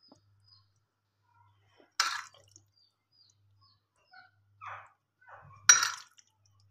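A metal spoon clinks sharply against glassware twice, about two seconds in and again near the end, with a soft wet squish in between as gelatin jelly cubes are spooned onto the custard.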